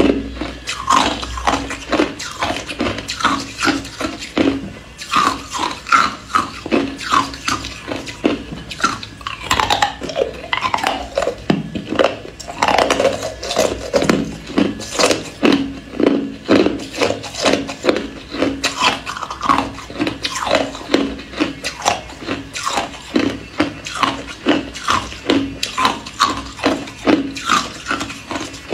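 Hard, clear ice cubes being bitten and chewed close up: rapid sharp crunches, about two to three a second, without pause.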